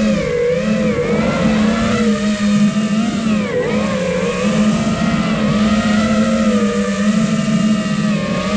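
Motors and propellers of a 5-inch FPV freestyle quadcopter (iFlight Nazgul Evoque F5) whining in flight. The pitch rises and falls with the throttle and dips sharply about three and a half seconds in.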